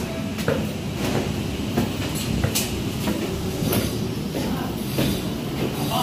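Construction-site noise: a steady low rumble with scattered knocks and clatter, including footsteps on a metal stairway.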